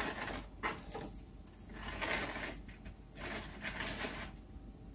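Paper basket shred rustling and crinkling in short spells as it is tucked by hand into the gaps around a cup in a drink holder.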